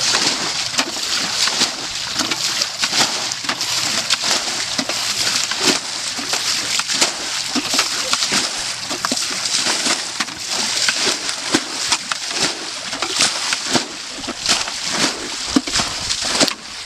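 Shallow water splashing and sloshing without a break, many small irregular splashes as water is churned by hand.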